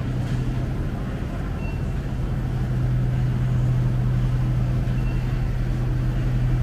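Steady low hum of a supermarket's refrigerated display cases and ventilation, with a few faint, short high tones now and then.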